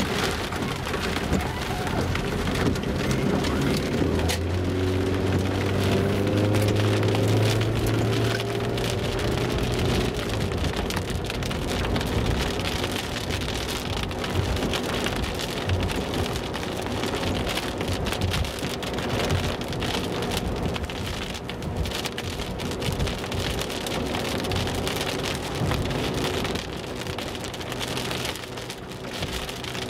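Rain drumming on a car's roof and windscreen, heard from inside the moving car. During the first ten seconds the car's engine rises in pitch as it accelerates away, under a steady hiss of rain and wet tyres.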